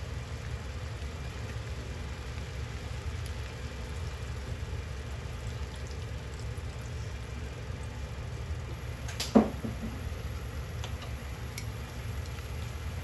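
Sliced pork leg frying in vinegar and ponzu in a non-stick frying pan: a soft sizzle over a steady low hum, with one sharp knock about nine seconds in.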